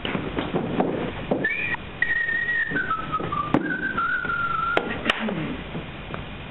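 A person whistling a short tune whose pitch steps downward, with a few sharp clicks in the second half.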